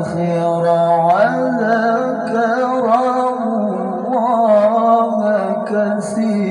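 A male qari reciting the Quran in melodic tilawah style, drawing out long, ornamented notes that bend up and down, amplified through a microphone and loudspeakers.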